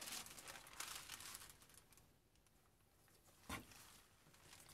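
Sheet of brown paper rustling and crinkling as it is spread over pressed leaves, fading out after about two seconds, then a single soft knock about three and a half seconds in.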